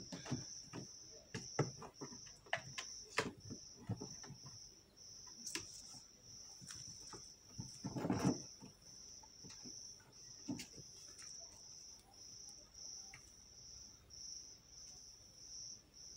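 A cricket chirping steadily in quick repeated pulses a few times a second. Over it come scattered light taps and scuffs from a cat playing on a concrete floor, with one louder scuffle about eight seconds in.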